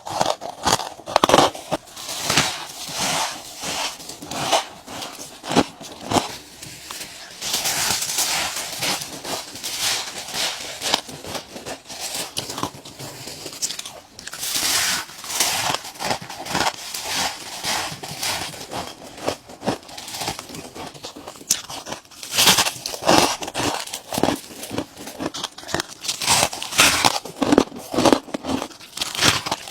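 Ice being bitten and crunched between the teeth: a long run of sharp, irregular crunches, the loudest in a cluster in the last third.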